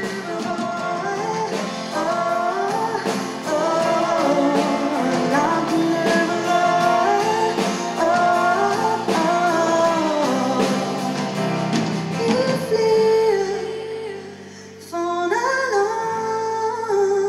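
A woman singing live with a Yamaha stage piano and a drum kit, a pop song. The music drops back briefly about fourteen seconds in, then the voice comes back in.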